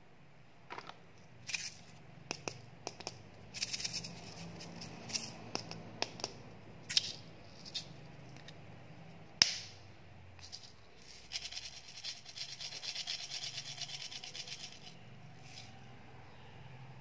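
Small plastic candy containers handled by hand, with scattered clicks and taps and one sharp snap about nine seconds in. Then several seconds of fast rattling as tiny candy grains pour out of a mini candy can into a palm.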